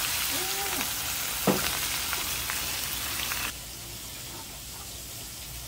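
Whole snapper deep-frying in a pan of hot oil: a steady, dense sizzle, with one sharp knock about a second and a half in. The sizzle stops suddenly about three and a half seconds in, leaving a much quieter background.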